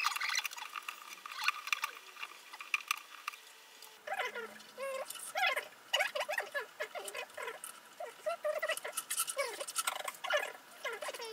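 Fast-forwarded audio of nylon guitar strings being loosened and handled at the headstock: a rapid patter of small clicks, then high, squeaky chattering from voices sped up, starting about four seconds in.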